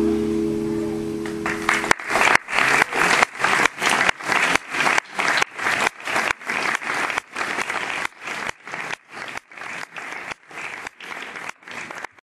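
The final chord of a trumpet, guitar and double bass trio rings out and dies away over the first two seconds. Audience applause follows, coming in even pulses about two or three times a second and fading out.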